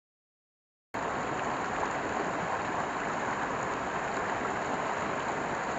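Mountain stream water rushing over stones, heard up close as a steady rush. It starts abruptly about a second in.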